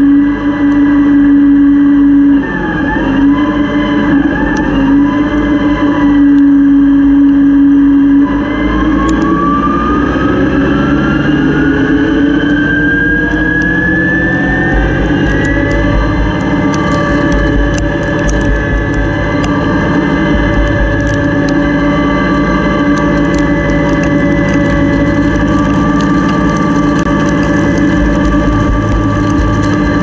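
Combine harvester's threshing and separating machinery running, heard from inside the machine. A steady hum gives way about eight seconds in to a whine that rises in pitch for several seconds as the drums spin up, then holds steady.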